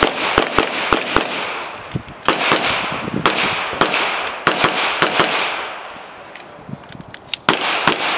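Pistol fire during a practical shooting course of fire: rapid strings of sharp shots, several a second, in groups with short pauses between them.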